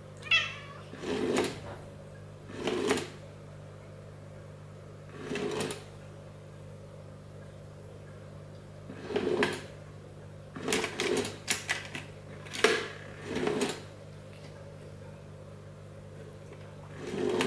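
Small electric motor of a FroliCat FLIK automatic cat toy whirring in short, irregular bursts, about ten of them, each under a second, as it whips its string around at random intervals. A steady low hum runs underneath.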